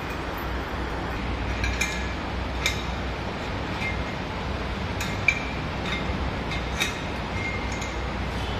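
Hand wrench clinking against the bolts and metal mounting plate of a surgical light as they are tightened to the ceiling: several sharp metallic clinks at irregular intervals, over a steady low hum.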